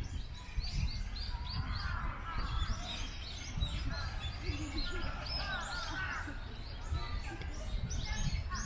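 Many small birds chirping and twittering in quick succession, high-pitched and overlapping, over a steady low rumble.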